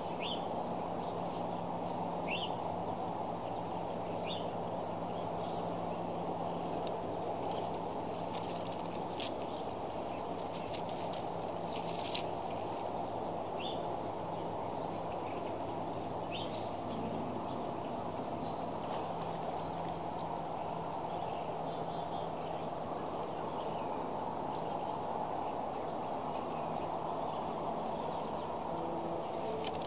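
Steady outdoor background noise with a low hum, faint short bird chirps every couple of seconds, and scattered light clicks and crackles of sticks as bald eagles work on their nest, mostly in the middle.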